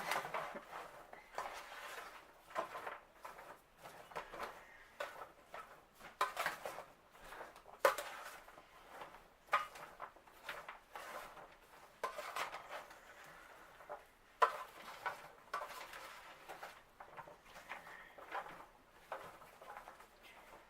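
A utensil stirring and turning sliced peppers and onions in a baking pan: irregular scrapes and clatters against the pan, with a few sharper knocks.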